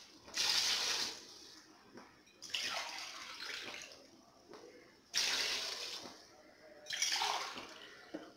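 Water poured into an aluminium pressure cooker onto chicken masala, in four separate pours. Each pour splashes in suddenly and trails off over about a second and a half.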